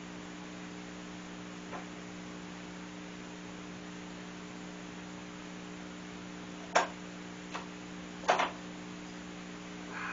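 Steady electrical mains hum, with a few sharp knocks or clicks about two-thirds of the way through, the loudest a quick pair near the end.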